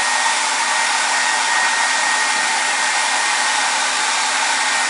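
Hand-held hair dryer running steadily: an even rush of blown air with a faint steady whine.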